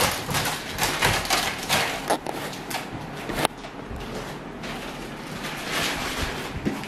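Large corrugated cardboard TV box being handled: the cardboard sleeve scrapes and rustles in a run of short strokes as it is lifted off, with a sharp knock about three and a half seconds in.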